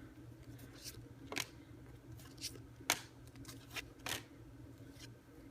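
Trading cards being handled and flicked through, giving faint, scattered short flicks and rustles.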